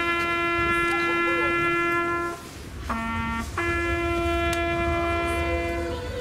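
Solo trumpet playing slow, held notes: a long note ending about two seconds in, then a short lower note followed by another long, steady higher note held for over two seconds.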